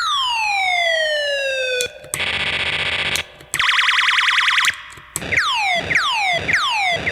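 PipoLolli raygun sound-effect synth making electronic zaps: first one long falling laser sweep lasting about two seconds, then two stretches of fast warbling, siren-like tone, then four quick falling zaps in a row.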